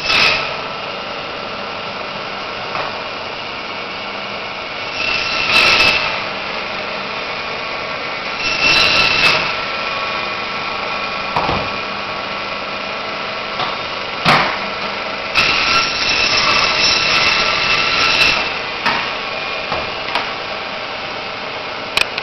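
Meat band saw running with a steady motor hum. Its blade cuts through meat and bone in several louder passes, the longest nearly three seconds, with a few sharp knocks in between.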